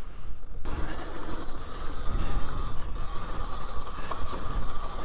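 Talaria Sting R MX4 electric dirt bike under way on a dirt trail: its motor gives a steady high whine that comes in about half a second in, over a low rumble.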